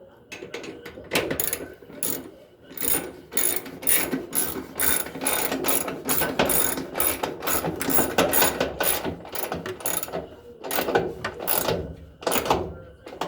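Ratchet wrench clicking in repeated strokes as the bolts of a new washer damper shock are tightened, with a short pause about ten seconds in.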